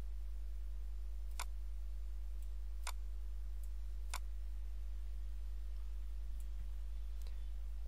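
A computer mouse clicking: three sharp clicks about a second and a half apart, with a few fainter ticks later, over a steady low electrical hum.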